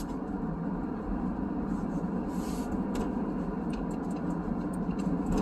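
Car being driven, a steady rumble of road and engine noise heard from inside the cabin, with faint scattered ticks.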